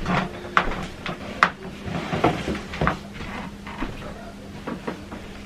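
Rummaging through hair-care products: about ten light, irregular knocks and clicks of containers being picked up, moved and set down.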